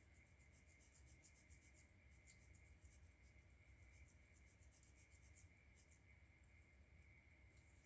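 Faint scratching of a pencil on drawing paper: many quick, short strokes, thinning out after about six seconds.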